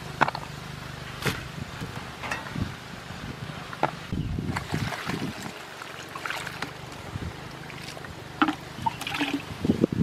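Water splashing and sloshing in a metal bowl as vegetables are washed by hand, with scattered clicks and knocks against the bowl.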